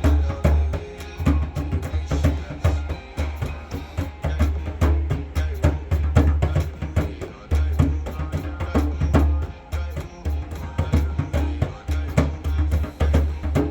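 Afrobeats song with drums played along to it: busy, rhythmic drum and percussion hits over a deep, pulsing bass line.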